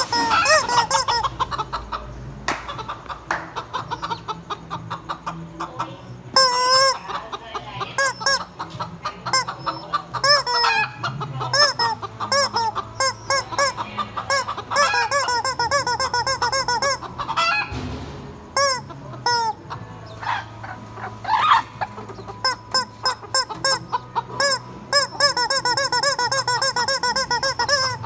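Chickens clucking continually, many short rising-and-falling notes following one another in quick runs, with a few louder calls standing out.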